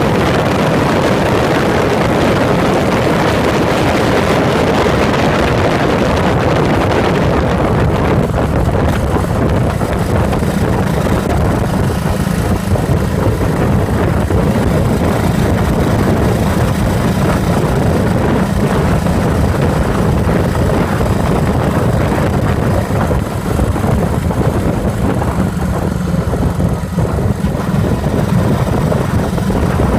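Yamaha SRX400's air-cooled single-cylinder four-stroke engine running under way, picked up by a phone mounted beside the fuel tank, with wind rushing over the microphone. The wind hiss is stronger for the first several seconds, then eases.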